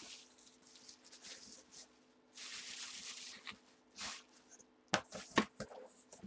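Hands handling things on a tabletop: a brushing, sliding noise lasting about a second, then two sharp knocks about five seconds in, over a faint steady hum.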